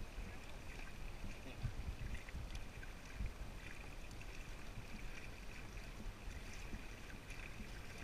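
Water washing and splashing along the hull of a sailing kayak moving under sail through choppy water, with a low, uneven wind rumble on the microphone.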